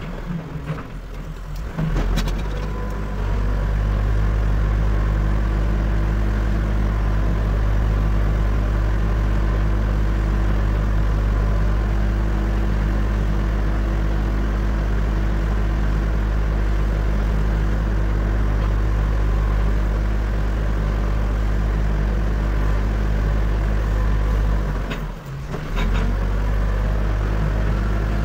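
Backhoe loader's diesel engine running steadily, coming up to a constant drone after the first few seconds, with a short dip about 25 seconds in.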